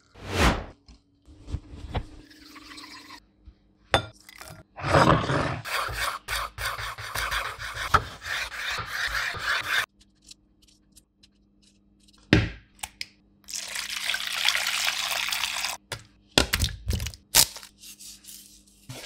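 Kitchen preparation sounds one after another: water poured into a steel mixer jar of chopped coconut, then several stretches of noisy hiss and scraping, broken by a few sharp knocks.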